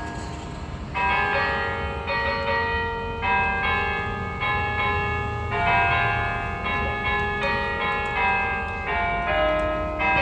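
Cathedral tower bells ringing on and on, bells of different pitch struck one after another about once a second, each ringing on under the next.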